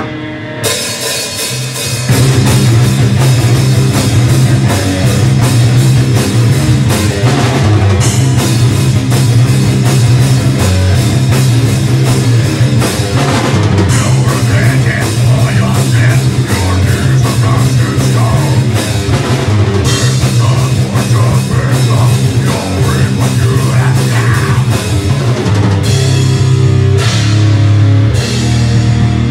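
Metal band playing live: drum kit and distorted electric guitars and bass, loud and dense with fast drumming. The full band comes in together about two seconds in.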